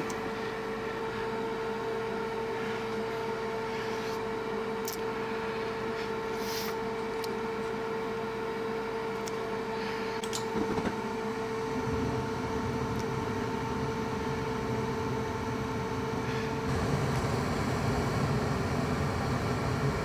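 Two-stage gas furnace starting up: its variable-speed draft inducer runs with a steady whine. About 11 seconds in there is a click, and a low rumble begins as the burners light. Near 17 seconds the whine drops out and the burner rush grows broader.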